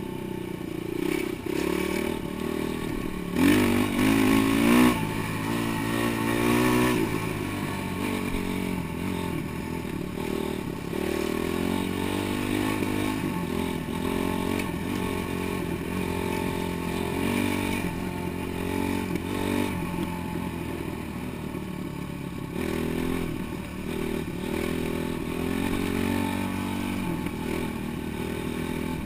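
Dirt bike engine running under way, its revs rising and falling with the throttle, loudest in a spell of hard revving about four seconds in.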